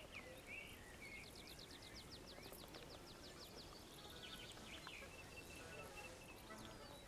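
Faint birdsong from small songbirds over a quiet outdoor background: a few chirps, then a fast trill of short notes about a second in, and a run of short repeated notes near the end.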